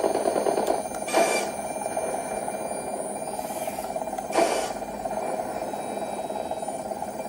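Small electric drive motors and plastic gearbox of a 1/16-scale RC tank running with a steady rattling whir, surging briefly louder about a second in and again about four and a half seconds in.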